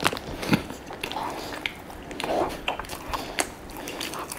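A person taking a bite of a soft packaged croissant with hazelnut praline filling and chewing it close to the microphone, with scattered soft clicks and smacks of the mouth.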